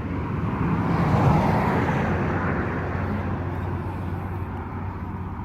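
A motor engine running steadily, with a rushing noise that swells to a peak about a second in and then slowly dies away, like something passing by.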